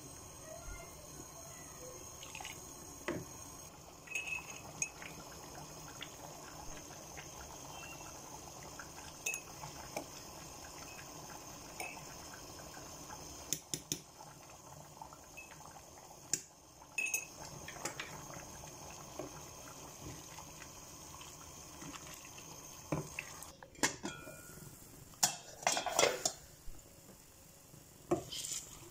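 Wooden spoon stirring chicken biryani in a metal cooking pot, with scattered knocks and scrapes of the spoon against the pot and the wet sound of the rice and broth over a steady background hiss. The knocks and scrapes come thickest near the end.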